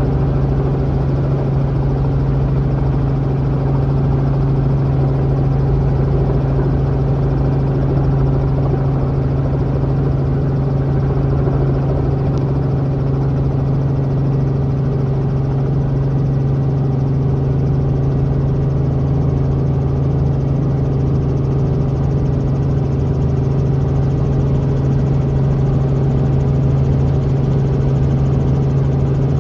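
Robinson R44 helicopter's piston engine and rotors running steadily, heard from inside the cabin: a loud, even hum with a strong low drone that holds unchanged throughout.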